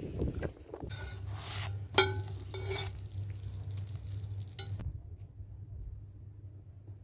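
Metal tongs scraping and clinking against a cast-iron flatbread griddle as the bread is turned over embers, with one sharp ringing clink about two seconds in.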